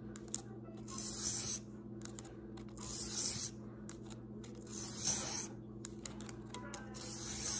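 Broadhead blade stroked across a flat sharpener: four short, hissing scrapes about two seconds apart, one per sharpening pass.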